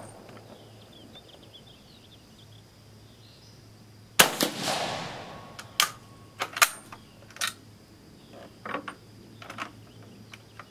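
A single rifle shot from a Vetterli 1870/87/15 converted to 6.5 mm Carcano, about four seconds in, with a long echoing tail. It is followed by a string of short metallic clicks and clacks as the rough bolt action is worked open and closed.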